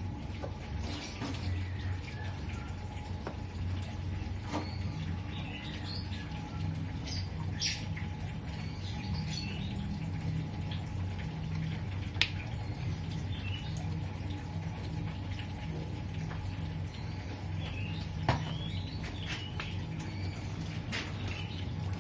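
A wet kitten being washed by hand at a metal sink: water dripping and trickling with faint high chirping squeaks and a few sharp clicks, the sharpest about twelve seconds in, over a steady low hum.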